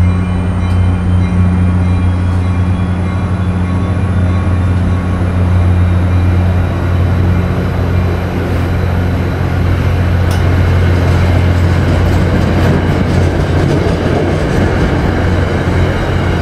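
Diesel-hauled passenger train pulling out and picking up speed: a steady low engine drone with a faint high whine slowly rising in pitch, and the coaches' wheel-on-rail rumble growing louder in the second half as the cars roll past.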